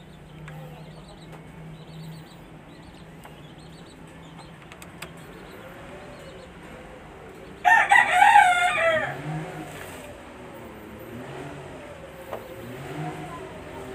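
A rooster crows once, about eight seconds in, for about a second and a half.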